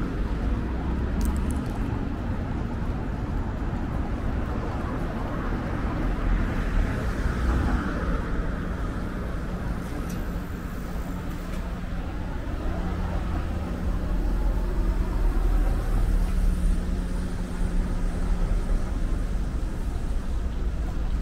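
Busy street ambience: a steady rumble of road traffic, with a low engine hum holding steady for several seconds in the second half.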